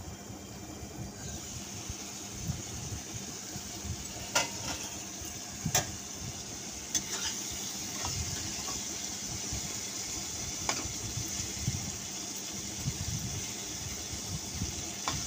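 Fish and potato pieces sizzling as they fry in oil in a pan, the hiss starting about a second in, with a metal spatula knocking and scraping against the pan about half a dozen times.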